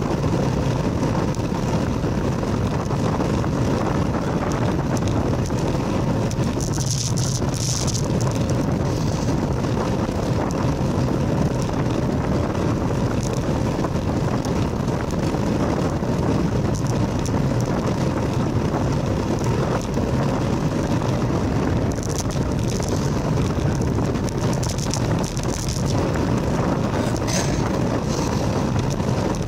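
Steady wind buffeting the microphone and tyre rumble on asphalt from a moving bicycle, with a few short high-pitched sounds about seven seconds in and again near the end.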